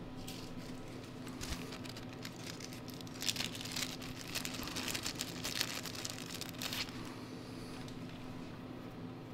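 Small plastic parts bag crinkling and rustling for about four seconds midway, as the replacement carburetor gasket is taken out of it, over a steady low hum.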